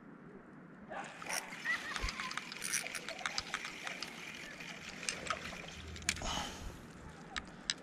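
Spinning reel cranked steadily, with many quick clicks and rattles from about a second in, as a hooked bluegill is reeled in, splashing at the water's surface.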